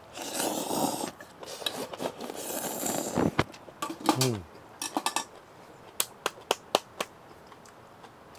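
Eating utensils and dishes clinking and scraping, with rustling in the first few seconds and a quick run of sharp clicks about six to seven seconds in.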